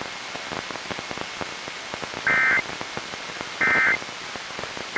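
EAS end-of-message tones from a Reecom R-1630 weather radio's speaker: three short warbling digital data bursts, a little over a second apart, that signal the end of the test. The third starts right at the end. Before them there is only the radio's steady static hiss with faint crackle.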